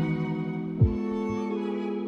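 Slow, soft background music of sustained held tones, with a low soft thump a little under a second in.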